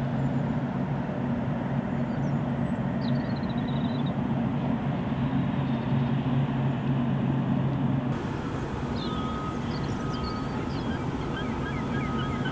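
Steady low mechanical hum of industrial machinery, with short chirping bird calls over it from about two-thirds of the way in.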